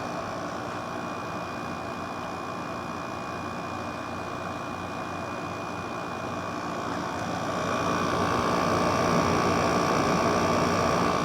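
Everstar window air conditioner running, its LG compressor and fan making a steady, fairly quiet hum with faint steady tones. The sound grows louder about seven seconds in. It runs quietly for an old Fedders-built unit, which are usually noisy.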